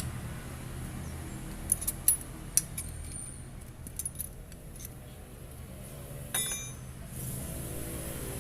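Metal tools and scooter engine parts clinking during a teardown: a few sharp knocks about two seconds in, lighter clicks near four seconds, and a short rattle past six seconds, over a low background hum.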